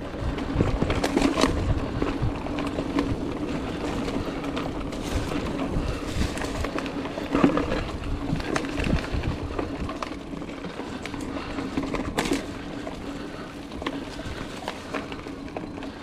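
Trek Roscoe 8 hardtail mountain bike's tyres rolling over dirt singletrack and dry leaves, with a steady hum and scattered rattles and knocks from the bike over bumps; a sharper knock comes about seven seconds in.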